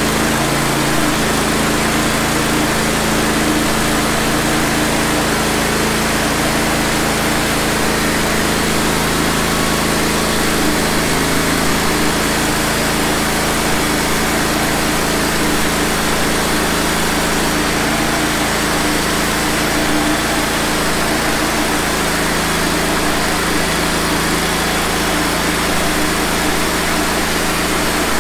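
Wood-Mizer LT15 portable band sawmill running steadily, its engine under load as the band blade cuts through a pine log.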